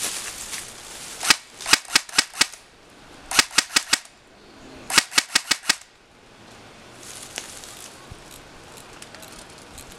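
Airsoft rifles firing: sharp snapping shots in quick strings of four to six, with one lone shot before them and short pauses between the strings.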